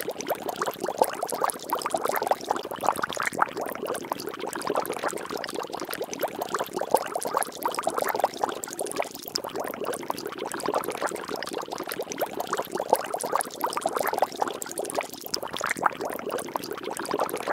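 Water bubbling and splashing steadily: a dense, unbroken stream of small liquid pops and spatters.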